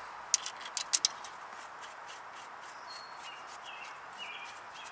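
A handful of sharp metallic clicks in the first second or so as the caliper bolts are fitted by hand into a new front brake caliper. Faint short bird chirps follow near the end.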